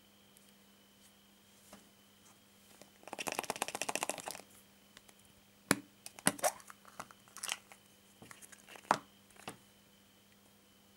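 Hard plastic surprise-egg capsule handled and opened: a rapid crinkling rattle, then a series of sharp plastic clicks and snaps as the two halves are pulled apart.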